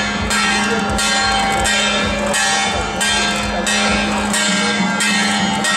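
Procession percussion: metal gongs and cymbals struck in a steady beat about every two-thirds of a second, their tones ringing on between strikes over a steady low hum.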